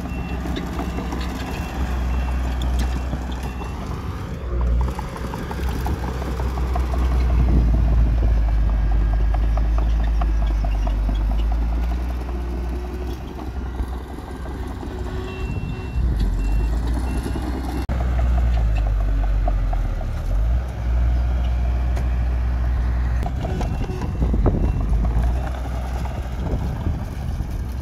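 Heavy diesel earthmoving machinery running under load, a deep engine rumble that swells and eases. A reversing alarm beeps in short runs several times.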